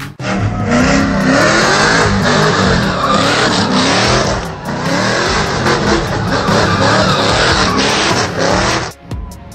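Chevrolet Camaro doing a burnout: the engine revving hard, its pitch rising and falling again and again, over the screech of spinning rear tyres. The sound cuts off abruptly near the end.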